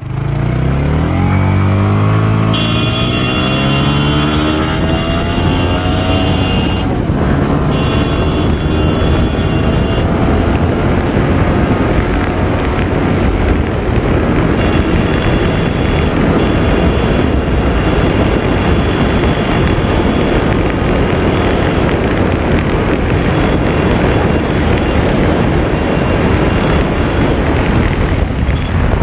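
Sport motorcycle engine accelerating hard, its pitch climbing over the first few seconds. Then a steady heavy rush of wind over the microphone at highway speed, with the engine running underneath.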